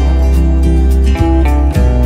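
Background music with guitar over a sustained bass line.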